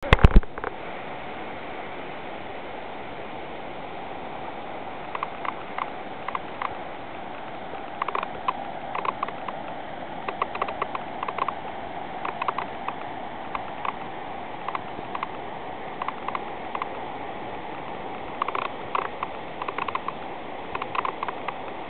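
Steady rush of ocean surf breaking on a sandy beach, with a brief loud knock at the very start and scattered short clicks and taps from about five seconds in, several in quick clusters.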